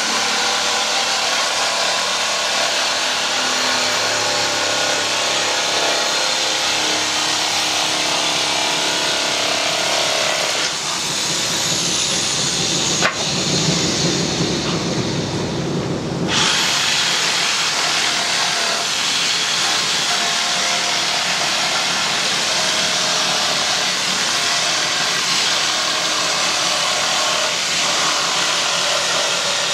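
Woodworking power tool running steadily with a dense, hissing mechanical noise. For a few seconds around the middle the sound changes, with a sharp click, before the steady running returns.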